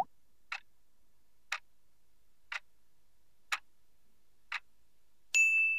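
Quiz countdown timer sound effect: a short rising swoosh, then five clock ticks one second apart, ending in a bright ding that rings on.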